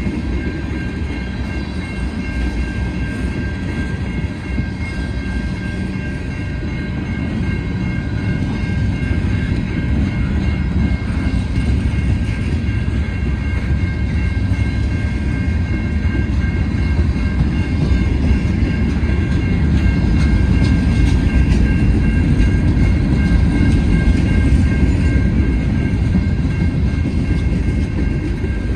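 Freight train cars, tank cars and covered hoppers, rolling past: a steady low rumble of wheels on rail with a few steady high tones over it, growing somewhat louder in the second half.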